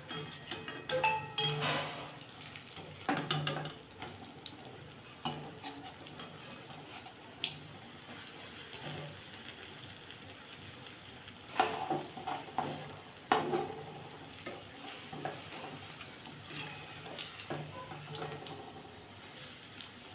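Besan-battered papaya pakoras deep-frying in hot oil in a kadai, a steady sizzle. A slotted metal spoon knocks and scrapes against the pan now and then, loudest about twelve and thirteen seconds in.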